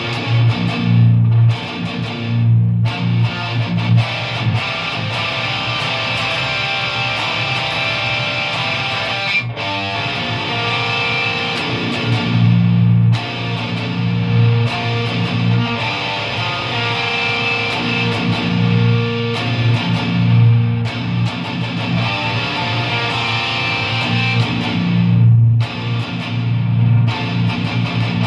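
Electric guitar playing heavily distorted deathcore riffs, dense and chugging in the low register, with a few short stops between phrases.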